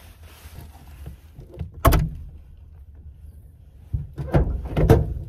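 Knocks and thuds from someone moving around and handling gear inside a truck-bed camper shell. There is one loud knock about two seconds in, then a cluster of several knocks about four to five seconds in.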